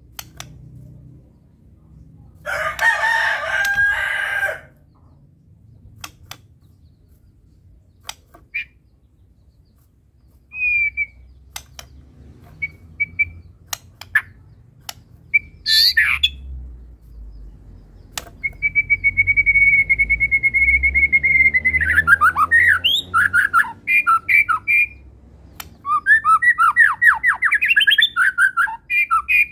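White-rumped shama (murai batu) singing in bursts, a song full of mimicked calls. Clicks and short chips come between phrases, with a harsh rasping call early on. Past the middle there is one long held whistle, then a fast run of falling and rising notes, and another quick run near the end.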